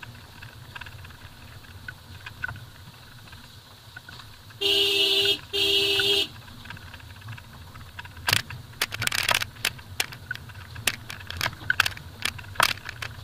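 Low steady rumble of a car creeping over a rough dirt track, with two short horn blasts about five seconds in. In the second half, a scattered run of sharp clicks and rattles as the car goes over the bumpy, stony surface.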